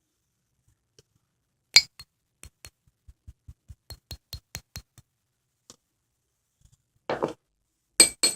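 A metal spoon tapping and clinking against a bowl of konjac jelly. There is a sharp clink about two seconds in, then a quick run of light taps at about five a second. Near the end comes a short scrape and two more sharp clinks.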